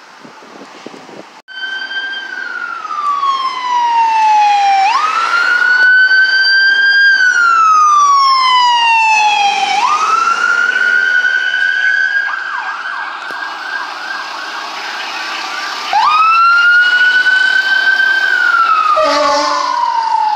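Fire department emergency siren wailing: the pitch climbs quickly and falls slowly, repeating about every five seconds. Midway it switches to a rapid yelp for a few seconds before the wail resumes, and a short low horn blast sounds near the end.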